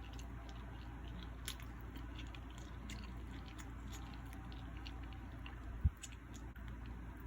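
Close-miked chewing of food, scattered small crisp crackling clicks from the mouth, over a steady low hum. One brief low thump about six seconds in.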